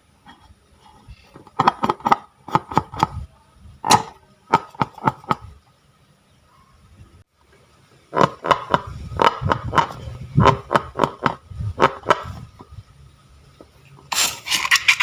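Slime being squeezed and worked by hand, giving off clusters of quick sticky pops and clicks. It falls quiet for a couple of seconds in the middle, and a short hiss comes near the end.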